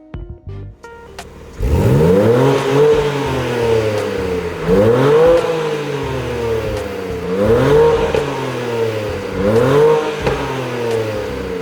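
BMW M2 G87's twin-turbo straight-six idling, then revved four times in a row, its exhaust note rising and dropping back each time.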